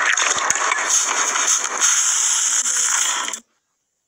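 Dense crackling and crunching of hands squeezing and kneading dried floam slime in a bowl. It cuts off suddenly about three and a half seconds in.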